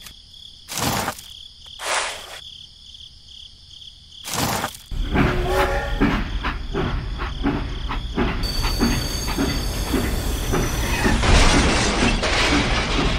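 Three brief whooshes, then a battery-powered toy steam locomotive running on plastic track from about five seconds in: a steady motor noise with rhythmic clicking, a little over two clicks a second.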